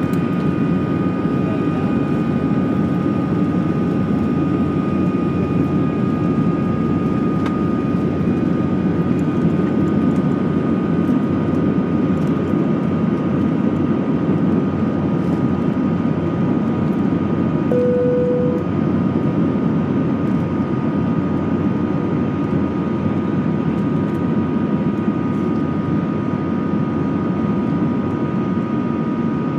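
Airbus A320 jet engines at high thrust, heard from inside the cabin: a steady, loud rush with several steady whining tones above it. About two-thirds of the way through, a single short tone sounds once.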